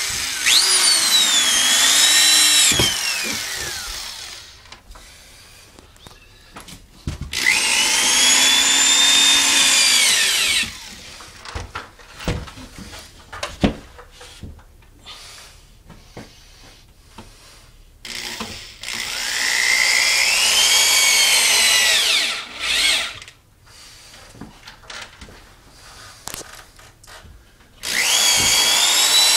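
Corded electric drill driving screws into a half-inch drywall sheet on a ceiling, in four runs of a few seconds each, its motor whine rising and falling in pitch. Light clicks and knocks between runs.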